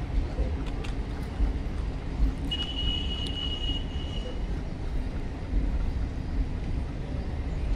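Indian Railways passenger coaches rolling past on a neighbouring track, a steady rumble of wheels on rail with a few light clicks. A brief high-pitched wheel squeal rings out about two and a half seconds in, lasting under two seconds.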